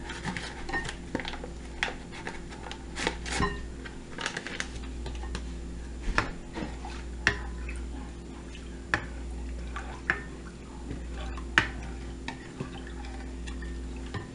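A black ladle stirring broth in a bowl, giving irregular clinks and knocks against the bowl's side over a low steady hum.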